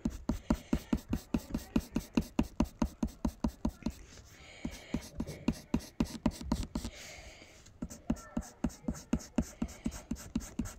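Graphite pencil hatching on paper resting on a wooden table: a fast, even run of short scratchy strokes, about five a second. The strokes pause twice briefly near the middle.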